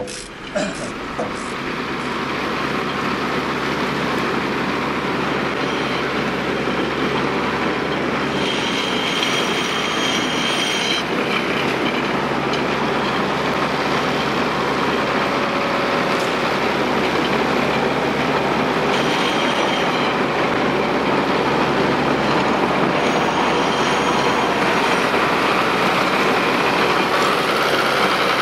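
A 5-ton tracked all-terrain vehicle driving steadily, its engine running and its tracks clattering, with a high squeal now and then.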